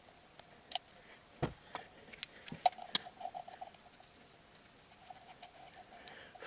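Scattered metallic clicks and taps of a hand socket wrench working loose the oil pump housing bolts on a Toyota 3S-FE-family engine, with a short run of light quick clicks about three seconds in.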